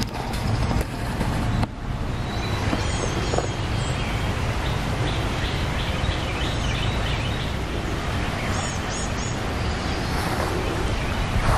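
Outdoor meadow ambience: a steady low rumble, with birds chirping and singing over it, including a rapid trill in the middle and a few quick chirps near the end.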